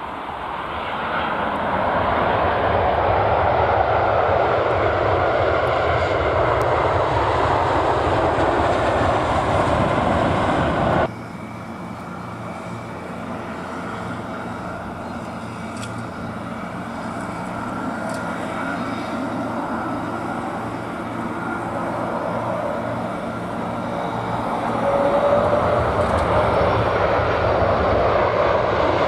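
Airliner jet engines during landings. An Airbus A340-300's engines run loud and steady, then cut off abruptly about 11 seconds in. A quieter jet sound from an approaching Airbus A330-300 follows and grows louder near the end.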